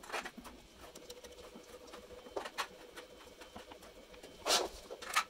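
Small clicks, scrapes and knocks of hard 3D-printed PLA plastic as concrete-filled weight elements are handled and screwed into the lamp's base piece by hand, with a few louder knocks, the loudest about four and a half seconds in.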